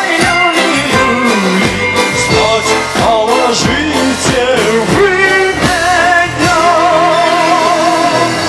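Live band music played loud through PA speakers, with a male singer and a drum kit; in the second half a held melody line wavers with vibrato.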